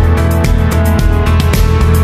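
Background music with a steady beat, about four drum hits a second over a deep bass and held tones.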